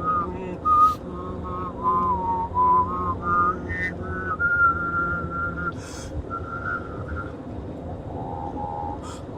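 A person whistling a melody from a trombone piece in clear, separate notes that move stepwise, with a low steady hummed voice note underneath for the first half. The whistled notes drop lower near the end, into the bass trombone part.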